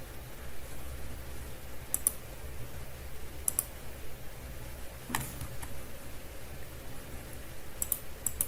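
A few sharp clicks of a computer mouse or keys, mostly in quick pairs, spaced a second or more apart over a low steady hum.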